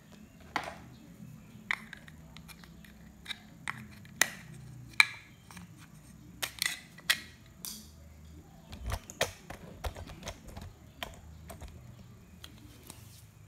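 Irregular plastic clicks and taps as a power window switch unit is handled and worked out of the switch opening in a car door trim panel, the sharpest about five seconds in, with a duller knock about nine seconds in.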